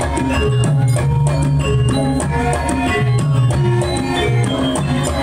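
Javanese gamelan music accompanying a Lengger dance: drum strokes over ringing metal gongs and metallophones in a steady, dense rhythm.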